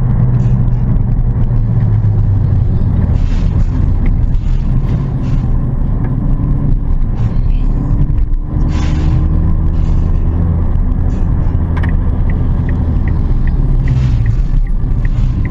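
Car driving, with steady engine hum and road rumble heard from inside. About eight seconds in, the engine note dips briefly and settles at a new pitch, like an automatic gearbox changing gear. Near the end a quick, even ticking starts, a little over two ticks a second.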